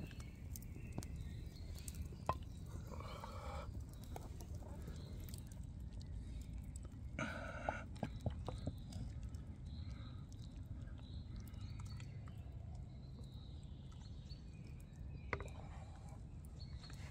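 Quiet outdoor ambience: a steady low rumble with a bird calling briefly twice, and a few small clicks.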